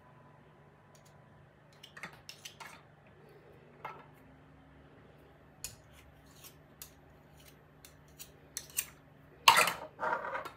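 Metal spoon clicking and scraping against a dish while butter is scooped out and measured, in scattered small clicks, with a louder clattering scrape near the end.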